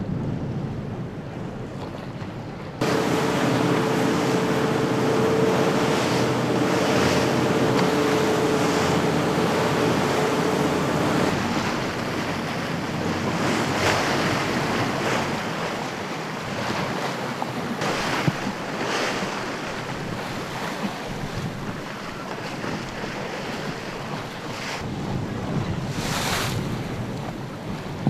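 Wind buffeting the microphone over choppy sea, with waves and bow spray splashing as a racing sailing yacht drives hard through the chop; several brief splashes stand out. The sound gets louder abruptly about three seconds in, and a steady hum runs under it for several seconds after that.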